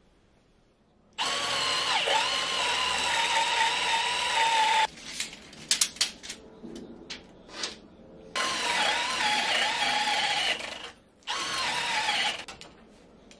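Cordless drill boring into a laminated white oak boat stem for through bolts, run in three bursts (a long one, then two shorter ones near the end), its pitch dipping briefly under load. Between the first and second runs come a few sharp clicks and knocks.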